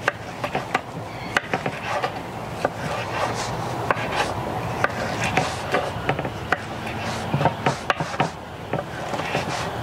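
Kitchen knife cutting up a red sweet pepper: a run of irregular, sharp chopping taps.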